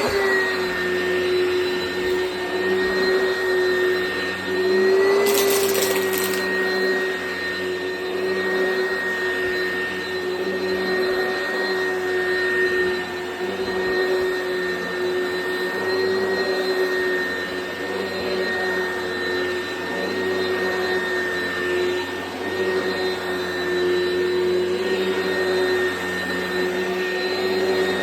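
Oreck XL Commercial upright vacuum cleaner running steadily while vacuuming, a constant high motor whine over airflow hiss. Its pitch lifts briefly about five seconds in.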